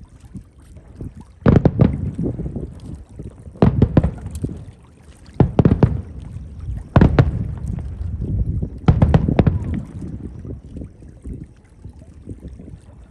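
Aerial fireworks shells bursting overhead: five loud booms about every two seconds, each a quick double crack that trails off in a low rumble.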